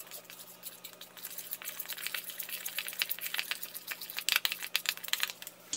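Spoon stirring thick honey and oyster sauce in a small plastic bowl: a rapid run of wet clicks and smacks that grows louder about a second and a half in.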